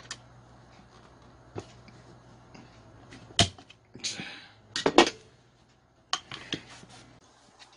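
Hand tools and a chainsaw's plastic clutch cover knocking and clicking as they are handled and the cover is fitted back on: scattered sharp knocks, the loudest two about three and a half and five seconds in, with a short scrape just after four seconds and a few clicks past six seconds.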